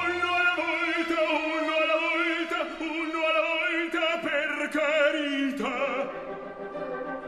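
Operatic singing with orchestral accompaniment: a voice holding long notes with a wide vibrato, moving to new notes about five and a half seconds in.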